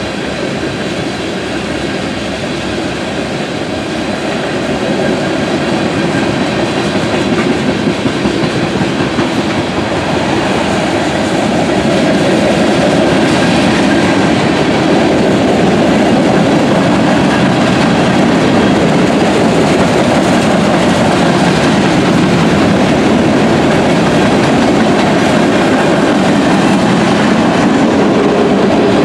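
Freight cars of a long mixed freight train rolling past: the steady noise of steel wheels on the rails. It gets louder from about four to twelve seconds in, then holds.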